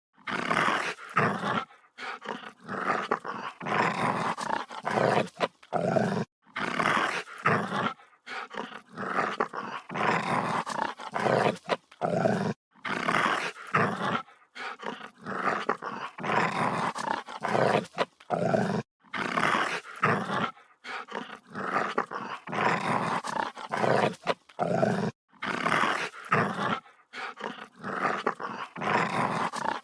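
A dog growling aggressively, in a continuous series of rough growls about a second long each, broken by short pauses.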